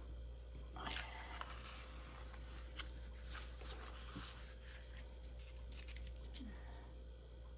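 Faint rustling and rubbing of cardstock as it is pressed flat and slid and turned on the tabletop, with a brief louder swish about a second in and a few light taps.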